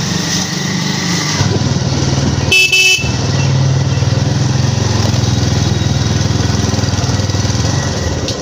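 Motorcycle engine running steadily while riding, with one short horn honk about two and a half seconds in.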